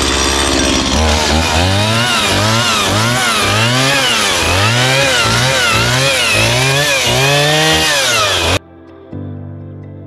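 Gasoline chainsaw cutting through a felled dead tree, its engine pitch rising and falling about once a second as the chain bites into the wood. The saw cuts off abruptly near the end, leaving faint music.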